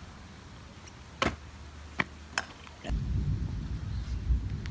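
Three sharp clacks of a trick scooter hitting the pavement, then a low rumble from about three seconds in.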